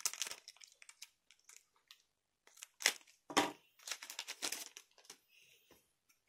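Foil trading-card booster pack crinkling and crackling in short bursts as it is cut open with scissors and the cards are pulled out. The loudest crackles come about three and four seconds in.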